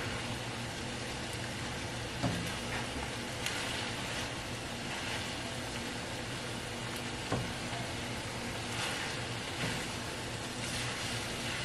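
Ground pork and shredded Brussels sprouts sizzling in a skillet while a spatula stirs them, with a few sharp knocks of the spatula against the pan.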